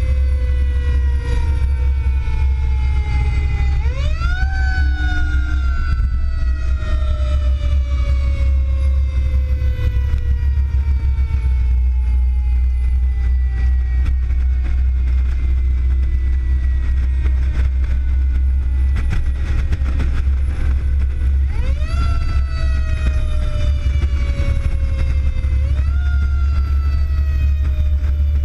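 Fire tanker's mechanical siren winding down slowly in pitch over many seconds and briefly wound back up about four seconds in, again about 22 seconds in and once more near 26 seconds, over the steady low drone of the truck's engine and road noise.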